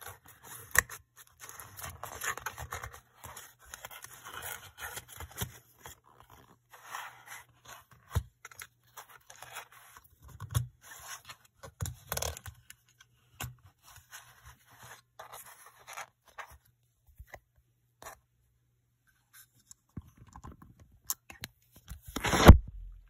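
Cardboard boxes and their corrugated card inserts being handled: scraping and rustling of card with scattered small clicks and taps, then one loud knock near the end.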